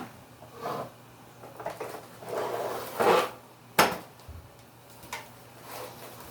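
Plastic knocks, scrapes and rattles of a Dirt Devil Vision bagless upright vacuum being handled and turned to show its underside, with one sharp click a little before four seconds in.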